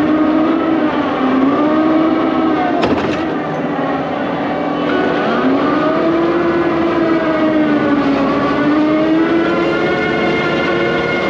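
Excavator's diesel engine and hydraulics running under working load, a steady droning note whose pitch sags and rises repeatedly as the machine digs and swings. A single short knock about three seconds in.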